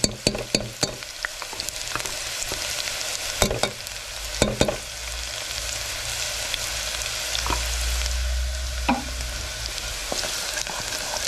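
Onions and garlic sizzling in hot oil in a metal pot, stirred with a wooden spoon that knocks against the pot a few times in the first second and twice more near the middle.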